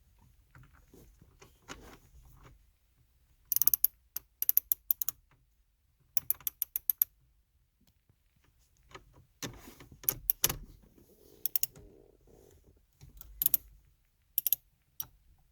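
Hand ratchet clicking in short rapid runs, about seven bursts with pauses between, as it backs out the Torx T30 screw that holds the steering-wheel airbag.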